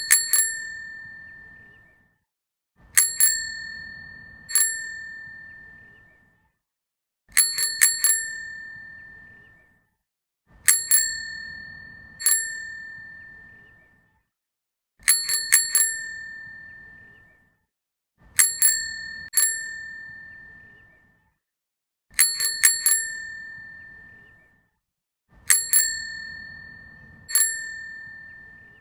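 Bicycle bell rung over and over in bursts: a quick double or triple ding, then a single ding about a second and a half later, each ring fading out. The bursts repeat about every three and a half seconds.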